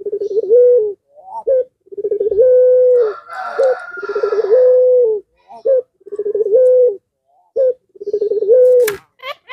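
Puter pelung, a domestic ringneck dove, cooing over and over. Each coo is a quick stuttering start running into one long held note, about every two seconds, with short notes between.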